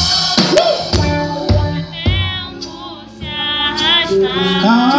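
Live band playing: drum kit, electric bass and electric guitar, with a high wavering melody line on top. The band drops quieter for a moment about halfway through, then comes back in.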